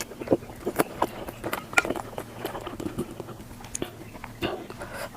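Close-miked eating sounds: a person biting and chewing, with many quick, crisp clicks and smacks, sped up to double speed.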